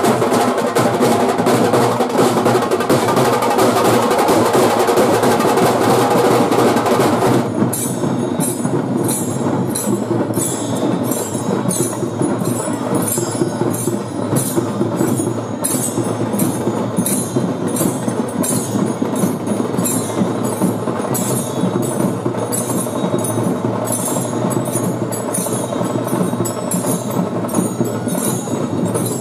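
Festival procession drumming on dhol drums: dense, loud drumming at first, then from about seven seconds in a steady beat with sharp strokes about twice a second.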